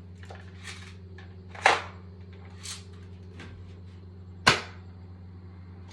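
Airsoft gun firing two sharp, loud shots about three seconds apart, with a few softer snaps between them, in an echoey room.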